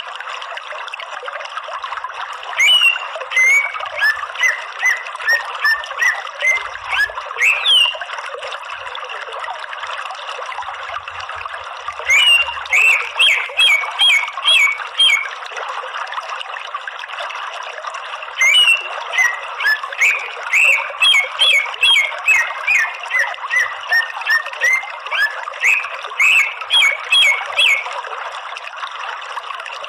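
Greater green leafbird (cucak ijo) calling in long runs of rapid, sharp chirps and whistled notes that start and stop every few seconds. Underneath is a steady rush of running water.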